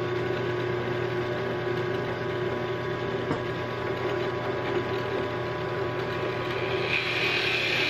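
Drill press running steadily, its motor humming as a 15 mm Forstner bit bores holes in a 3/4-inch scrap board. A rougher cutting hiss builds near the end.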